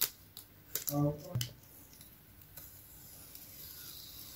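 Masking tape being worked loose from the edge of a watercolour painting: a few light clicks and taps, a brief hum of a voice about a second in, then a faint, slowly rising rasp as the tape starts to peel off the paper.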